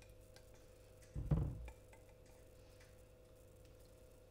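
Wet cake-batter ingredients poured from a glass measuring jug into a glass mixing bowl, mostly quiet over a faint steady hum. One short, dull thump comes a little over a second in.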